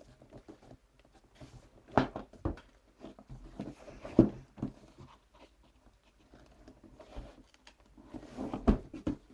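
Handling noise as a box is worked open by hand: several sharp knocks and taps, the loudest about two seconds in, about four seconds in and near the end, with faint rustling between.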